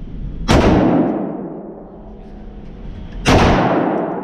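Two shots from an AR-15-style rifle, about three seconds apart, each ringing off for about a second in the reverberant indoor range.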